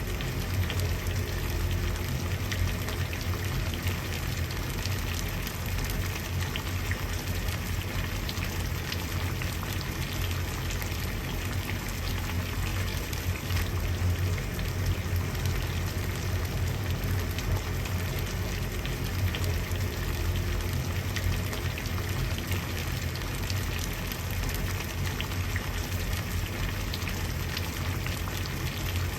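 Water at a steady rolling boil, bubbling and crackling continuously over a low rumble.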